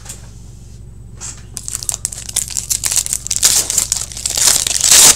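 Foil wrapper of a 2018-19 Upper Deck Trilogy hockey card pack being torn open and crinkled by hand. The crackling starts about a second and a half in and grows louder to a peak near the end.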